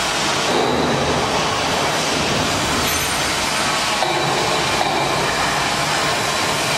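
LZ-1500L open dual-shaft mixer running under test, its anchor agitator and high-speed disperser motors making a steady, loud mechanical rumble and whir.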